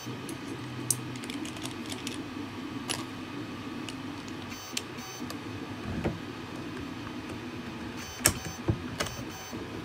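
Scattered light clicks and knocks of 3D-printed plastic airsoft rifle parts being handled and fitted together as the buffer tube is pushed onto the back of the receiver, the sharpest click about eight seconds in, over a steady background hum.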